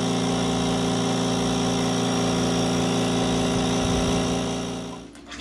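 Small portable air compressor running steadily with a motor hum, pressurizing an RV's water lines to about 15 PSI to blow the water out for winterizing; the hum fades away near the end.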